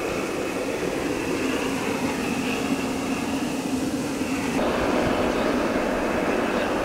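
Liquid-fuel blowtorch burning with a steady roar. About four and a half seconds in, the roar suddenly grows louder and fuller.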